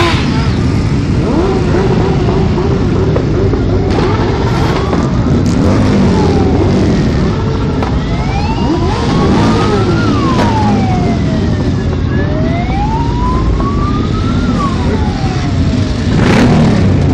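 Many motorcycle engines running and pulling away as a large group of bikes rolls off. A siren wails over them from about halfway through, rising and falling slowly about every four seconds, and there are loud bursts of noise right at the start and near the end.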